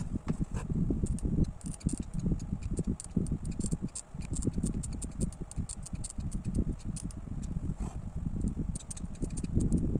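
Crafting handling noise from a hot glue gun being worked along a photo frame's edge, with many small irregular clicks and ticks over a low, uneven rumble.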